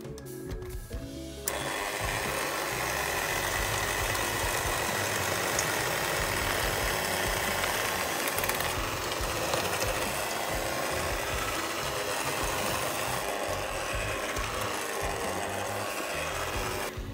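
Electric hand mixer running, its beaters churning crumbly pastry dough in a stainless steel bowl. It switches on about a second and a half in and stops near the end, with background music underneath.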